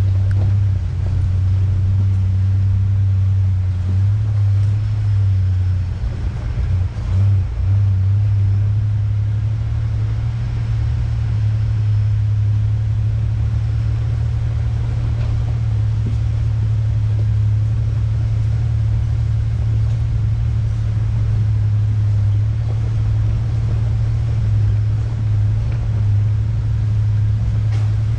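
A 1993 Ford Ranger driving at a slow, easy pace: a steady low drone of engine and drivetrain with road noise over it, dipping and wavering briefly about six to eight seconds in.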